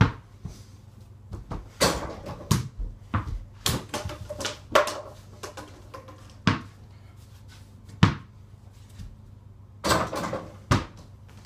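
A small ball shot at an over-the-door mini basketball hoop: a string of irregular sharp knocks and bounces as it strikes the backboard, rim and door and drops to the floor.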